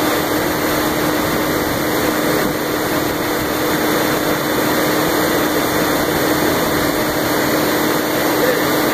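A 500 hp shunt-field DC motor running steadily under load at about 1150 rpm, drawing some 310 kW: a loud, even machine noise with a steady hum tone.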